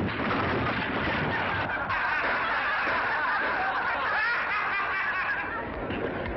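A roomful of people laughing and chuckling together, many voices at once at an even level.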